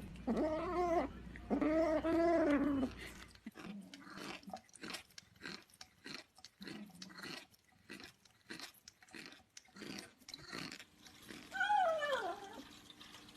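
A cat meows twice, then several seconds of quick crunching chewing, then one more meow that falls in pitch near the end.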